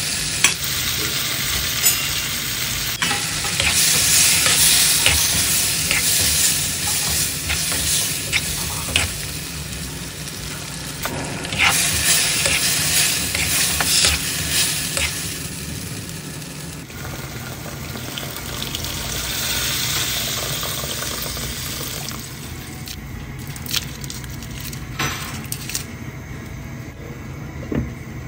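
Food sizzling in hot cooking oil in a pan while it is stirred, with scattered clicks and scrapes of the utensil against the pan. The sizzle grows quieter over the last several seconds.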